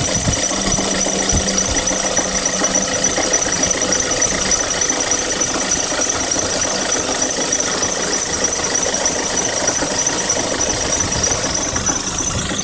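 Volkswagen Tiguan 1.4 TSI (150 hp) engine running, with a steady high-pitched noise from the engine bay: the extraneous under-bonnet sound the owner is trying to trace.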